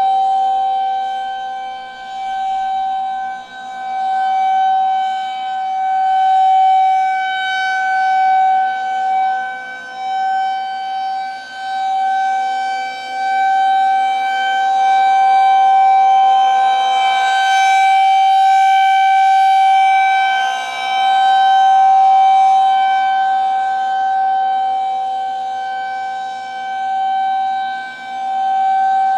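Federal Signal 2001-130 rotating electromechanical warning siren sounding the Full Alert signal: one steady, unwavering tone. The loudness swells and fades every few seconds as the rotating horn sweeps past and away.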